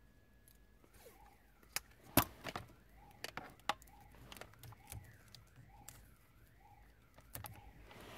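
Viper alarm siren wailing very low, its pitch sweeping up and down about once a second: a sign of a bad ground on the siren. Sharp clicks and knocks of hands handling the car's wiring harness sound over it, the loudest about two seconds in.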